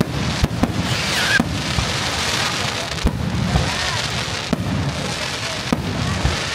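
Aerial fireworks display: shells bursting in quick succession, a sharp bang every second or so over a continuous crackle from the burning stars.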